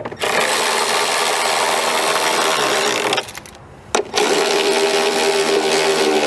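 Cordless electric ratchet running bolts down through a long socket extension: two steady motor runs of about three seconds each, with a short pause between them.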